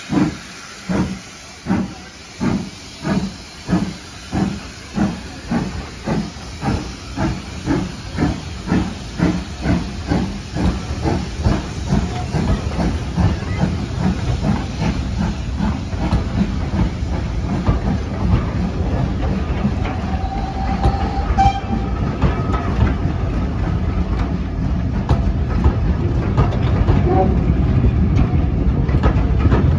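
A steam locomotive pulls away with a train. Its exhaust chuffs start about once a second and quicken steadily, with steam hissing from its open cylinder drain cocks. The chuffs then give way to a steady, growing rumble as the coaches roll past, with the clickety-clack of wheels over rail joints.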